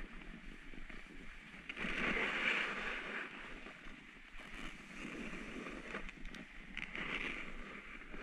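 A rider's edges hissing and scraping over firm groomed snow while sliding downhill, with wind on the microphone. The scraping grows louder twice, about two seconds in and again near seven seconds, as the rider turns.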